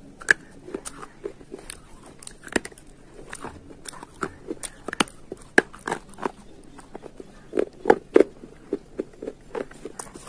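A slate pencil being bitten and chewed: a string of sharp, irregular crunches, several a second.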